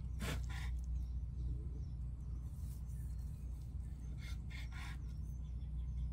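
Chef's knife slicing through a seared tuna steak onto a bamboo cutting board: two short rasping strokes just after the start and three more about four seconds in, over a steady low rumble.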